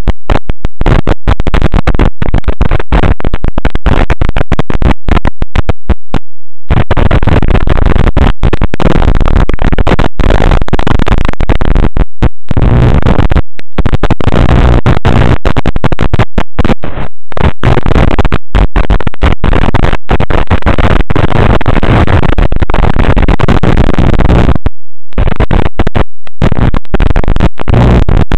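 Loud static hiss from an analog FPV video link's audio channel, recorded through the goggles' receiver, broken again and again by short dropouts to silence, the longest about six seconds in and near twenty-five seconds in.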